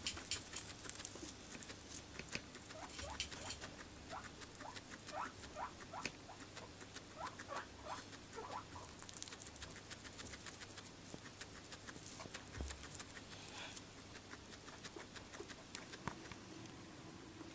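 A guinea pig chewing and nosing through hay: rapid crisp crunching and rustling clicks, with a run of short chirping squeaks in the first half.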